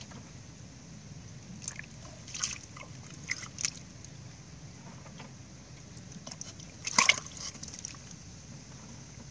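Snakehead fish splashing and sloshing in shallow muddy water, in short scattered bursts, the loudest about seven seconds in.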